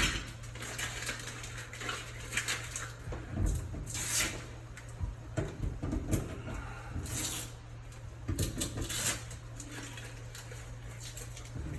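Masking tape and cut-off scraps of wallpaper being peeled off the wall and handled: scattered short rustles and crinkles, over a steady low hum.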